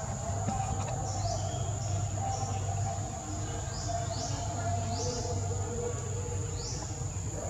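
Outdoor insect and bird chorus: a steady high-pitched insect drone with repeated short rising chirps over a steady low rumble.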